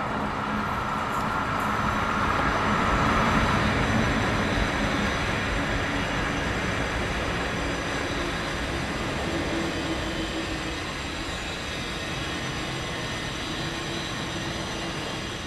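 Passenger train with three WAG-7 electric banking locomotives at its rear running away over the track: a steady rumble of wheels and rail with a few steady humming tones, loudest a few seconds in and then slowly fading as it recedes.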